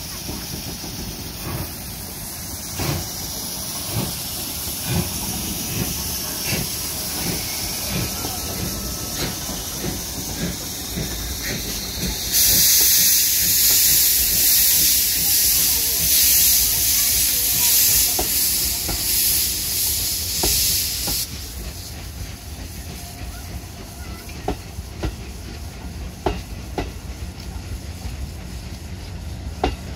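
JNR Class D51 steam locomotive and its 35-series passenger coaches rolling slowly past, the wheels clicking over the rail joints. About twelve seconds in a loud, steady hiss of steam starts, runs for about nine seconds and cuts off abruptly.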